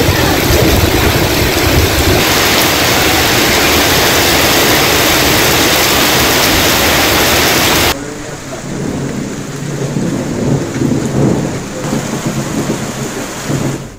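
Heavy rain pouring down in a loud, steady hiss. About eight seconds in it cuts abruptly to a quieter, more uneven stretch of rain.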